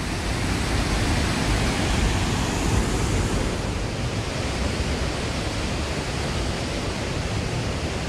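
Steady rushing of clear mountain water spilling over a concrete weir and running down a shallow, stony stream bed.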